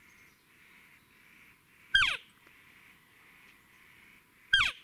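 Two short, loud cow-elk mews, each a quick call falling steeply in pitch, about two and a half seconds apart.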